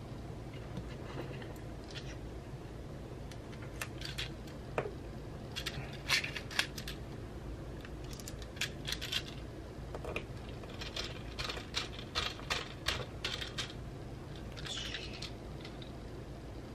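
Scattered light clicks and clinks of small screws and a hand screwdriver being handled while a computer is taken apart, busiest through the middle, over a low steady hum.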